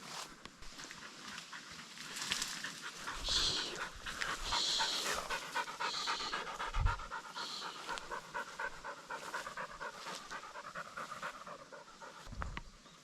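A hunting dog panting fast and hard, cooling itself after working in the heat, with a few short higher hissing sounds in the first half.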